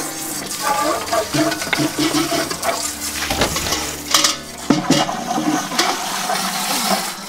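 Water from a garden hose rushing and splashing into metal milk cans as they are rinsed. Metal cans clank against each other and the ground, loudest twice, about four and five seconds in.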